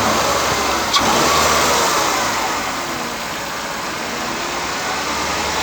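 Mercedes W210's supercharged 2.0 M111 four-cylinder engine being revved, the supercharger whine rising with the revs just after a second in, then falling away as the engine settles.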